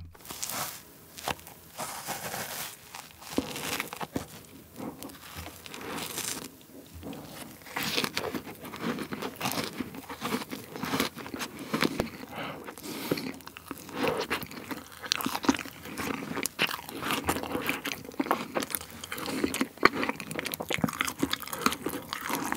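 Chewing and crunching of a fresh-cream fruit sandwich whose kiwi and grape slices are still frozen. The frozen fruit gives many small, irregular crunches between the teeth.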